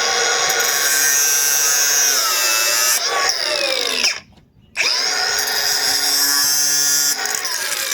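Milwaukee M18 Fuel six-inch cordless angle grinder running flat out with a high whine, its pitch sagging as it is loaded in the cut. It stops about four seconds in and starts again half a second later for a second run.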